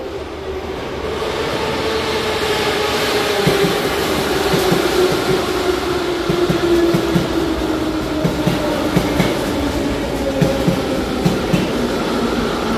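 Moscow Metro trains pulling into the station: a steady rumble with a whine that falls slowly in pitch as they brake, and wheels clicking over rail joints from a few seconds in.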